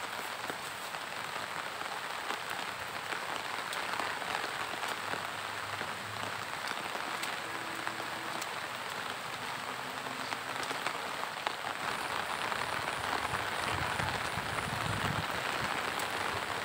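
Steady monsoon rain falling on leaves, ground and open pond water, a dense even patter. A few low rumbles come in near the end.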